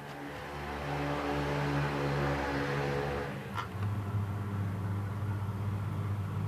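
Salvaged washing machine electric motor on a test run, spinning up over the first second and then humming steadily. About three and a half seconds in there is a short click and the hum drops to a lower, steadier tone.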